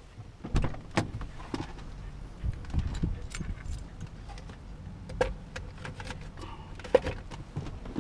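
Inside a slowly moving car: a low engine and road rumble, with irregular clicks, knocks and rattles in the cabin.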